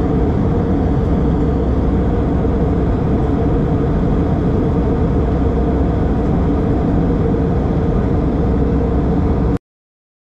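Steady jet airliner cabin noise in cruise flight, the engines and rushing air heavy in the low end, heard from a window seat. It cuts off suddenly near the end.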